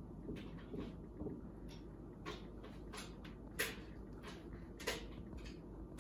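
Faint, scattered light knocks and clicks, about a dozen, over a low steady room hum.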